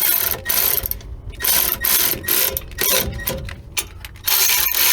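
Ratchet wrench clicking in short repeated strokes as the bolts of a rear shock mount skid plate are tightened. A longer unbroken run of clicking sets in near the end.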